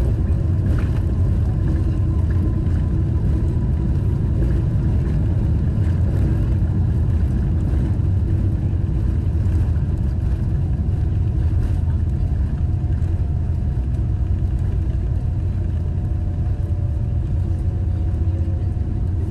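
Cabin noise of a Boeing 777-300ER rolling along the runway just after landing: a steady low rumble of wheels and engines, with a faint whine that slides slowly lower near the end.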